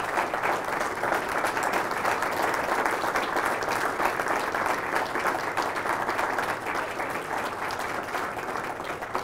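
A roomful of people applauding: dense, steady clapping from a standing audience.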